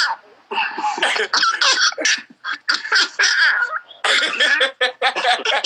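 People's voices laughing and coughing in loud, choppy bursts.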